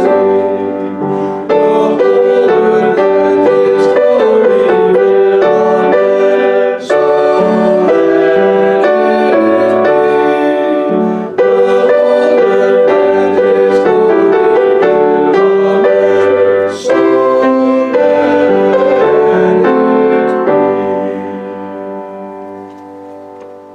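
Postlude played on a keyboard instrument, held chords moving steadily, fading out over the last few seconds.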